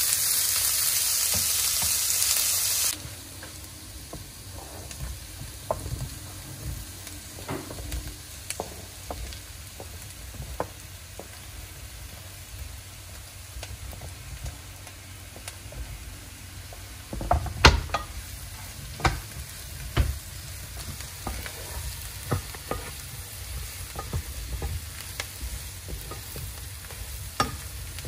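A loud steady hiss that cuts off suddenly about three seconds in. Quieter scattered clicks and knocks follow, with a cluster of louder knocks past the middle.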